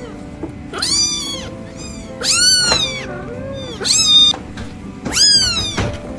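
Kitten meowing four times: high, arching mews about a second and a half apart, over background music.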